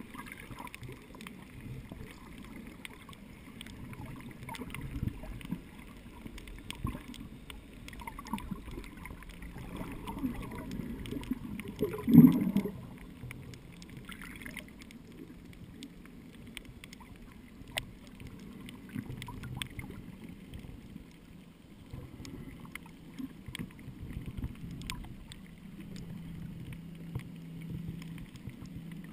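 Muffled underwater sound picked up through a GoPro Hero 2's waterproof housing: a low, uneven water rumble with scattered sharp clicks and one loud thump about twelve seconds in.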